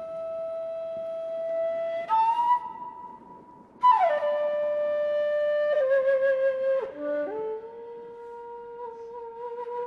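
Film score: a solo flute playing a slow melody of long held notes, some with a slight waver, stepping up and then down in pitch.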